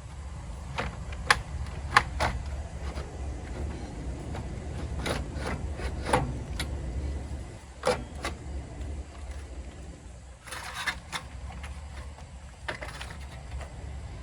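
Irregular clicks and knocks of tools and car parts being handled during disassembly of the front cooling components, over a steady low hum.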